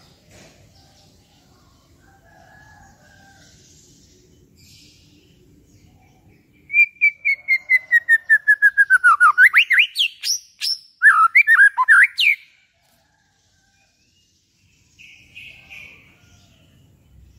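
White-rumped shama (murai batu) song: about halfway in, a loud run of quick repeated whistled notes, about six a second, falling steadily in pitch, then a flurry of rising sweeps and choppy notes. It stops abruptly after about six seconds, over a faint background hiss with a few distant chirps.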